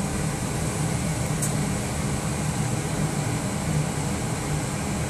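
Circulation fan of a Traulsen freezer converted to a fermentation chamber, running steadily and blowing air warmed by the defrost heating element out through the vent: a steady low hum with a rush of air.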